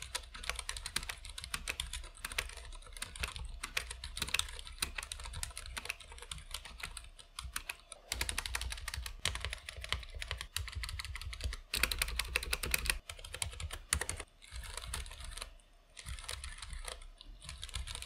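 Typing on a Ducky One 2 SF 65% keyboard with stock Cherry MX Silent Red linear switches and PBT keycaps: a fast, uneven run of damped keystrokes, not fully silent, with a short pause a little before halfway and another near the end.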